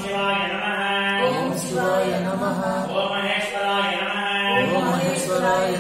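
A single voice chanting Hindu puja mantras in long, held, sung phrases, a new phrase starting every second or two.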